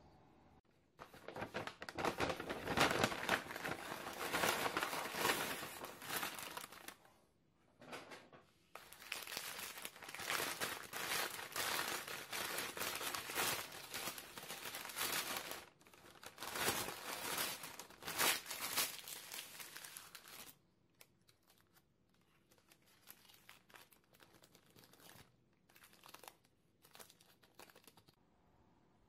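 Brown paper bakery bag crinkling and rustling as it is unwrapped by hand, loud and continuous with two short pauses, about seven and fifteen seconds in. From about twenty seconds in the rustling turns softer and patchier as thin white paper is peeled off a slice of cake.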